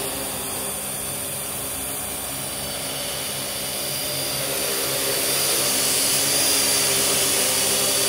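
Parrot AR.Drone 2.0 quadcopter's four rotors whining steadily in flight while carrying a half-pound (200 g) load, which it handles without strain. The whine grows louder over the second half as the drone flies closer.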